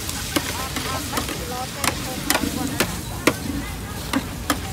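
Irregular sharp clacks of a street food cook's utensils, about eight over four and a half seconds, over steady background noise and faint market chatter.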